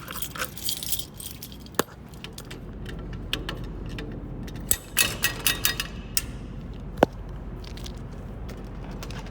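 Small clicks and clinks from a fire alarm manual pull station being handled while a new glass rod is fitted, with sharp single snaps about two seconds in and again near seven seconds.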